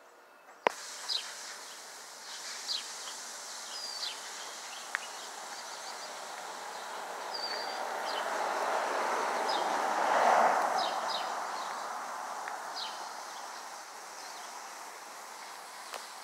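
Outdoor street ambience: birds chirping in short, scattered calls, and a passing vehicle whose noise swells and fades, loudest about ten seconds in. A single sharp click sounds just under a second in.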